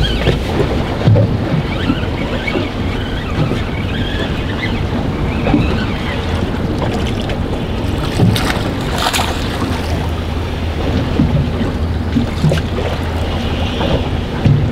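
Wind buffeting the microphone and waves slapping a boat's hull while a hooked tautog is reeled up, with two sharp splashes as the fish breaks the surface about eight seconds in.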